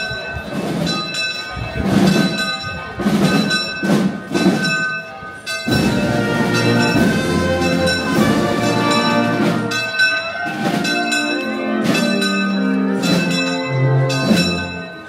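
Church bells ringing with repeated strikes; about six seconds in, a band with brass instruments starts playing over the still-ringing bells.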